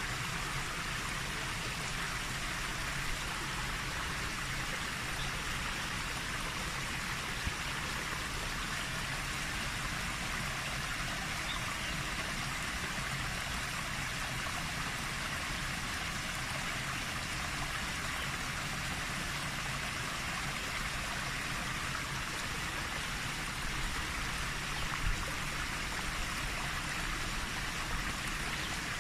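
Steady rushing water, an even hiss with a low rumble beneath it, unchanging throughout.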